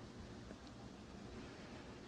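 Near silence: a faint, steady hiss of room tone, with a soft click about half a second in.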